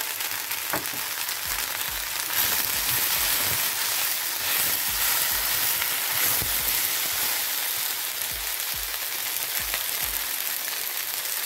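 Okra, onion and green chillies frying in oil in a pan: a steady sizzle that grows louder about two seconds in.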